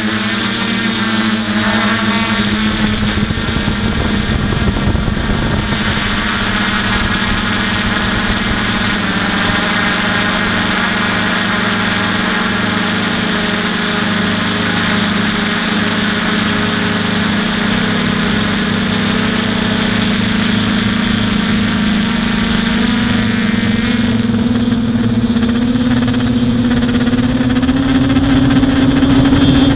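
Aphid X450 quadcopter's electric motors and propellers buzzing steadily, heard from its onboard camera. The pitch climbs in the last few seconds as the motors speed up, then drops sharply at the very end.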